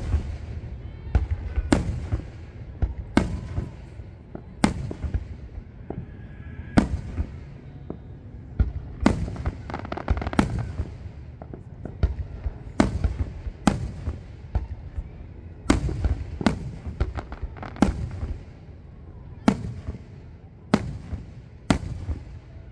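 Fireworks display: aerial shells bursting in the sky one after another, a sharp bang every one to two seconds, each trailed by a low rolling rumble.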